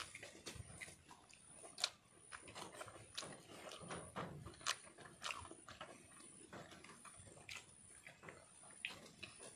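Faint eating sounds: chewing, with irregular light clicks and ticks of a meal being eaten from a plate.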